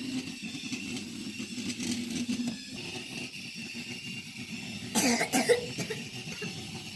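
Small battery-powered toy motor and gears running with a steady whir just after the robot-bird toy is switched on. A sudden loud rasping burst comes about five seconds in.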